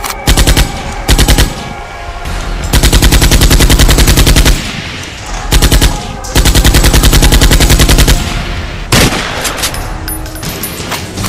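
Airsoft rifle firing on full auto, about fifteen shots a second. Two short bursts are followed by two long bursts of about two seconds each, then a short burst and a single sharp crack near the end.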